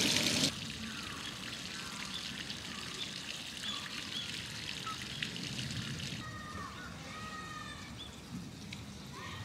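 Faint trickling water, with a few brief, faint high-pitched calls.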